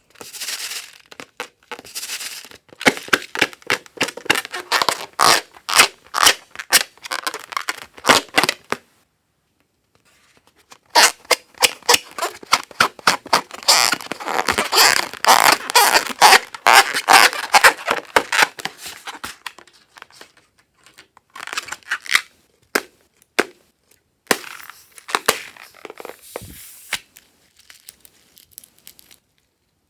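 Sticky slime being squeezed and worked by hand, giving dense runs of wet clicks and crackles. There is a pause about a third of the way in, and the clicks grow sparser toward the end.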